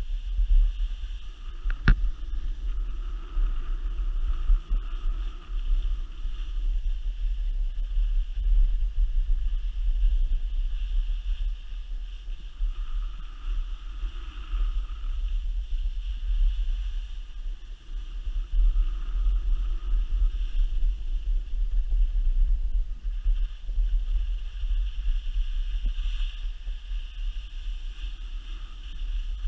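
Wind rumbling on the microphone of a helmet- or body-mounted camera during a downhill ski run, with the hiss and scrape of skis sliding over packed snow that swells and fades with the turns. A single sharp click about two seconds in.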